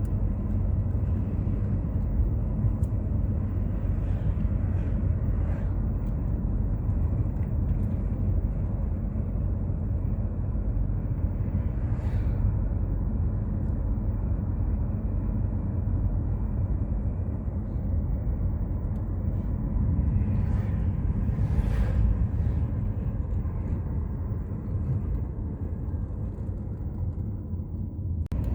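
Sea waves on a beach: a steady low rumble of surf that swells a little about twenty seconds in.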